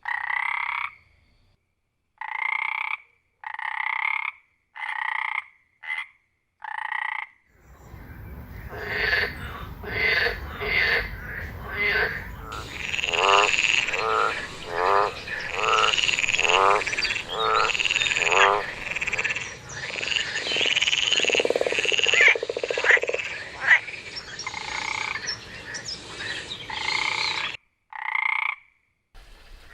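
Frogs croaking: about six separate calls at roughly one-second intervals, then a dense chorus of several frogs calling over one another, which stops abruptly near the end before one last short call.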